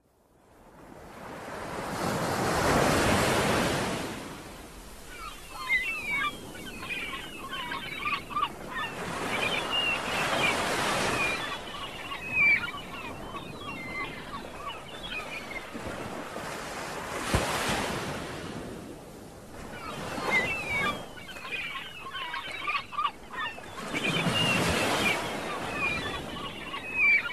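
Ocean surf breaking in slow swells about every seven seconds, the loudest near the start and near the end, with many short bird calls chirping between the swells.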